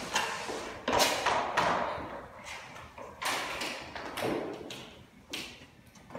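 Irregular knocks and taps from hand work on a floor, about seven in all, each with a short ring-out. The loudest come about a second in, and they get fainter toward the end.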